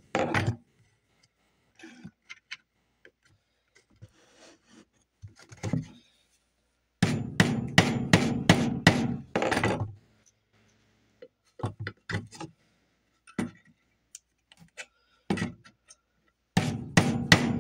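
Steel hammer striking a bent nail held with needle-nose pliers against a wooden board to straighten it. Quick runs of blows, about three a second, come about seven seconds in and again near the end, with scattered lighter taps and clinks between.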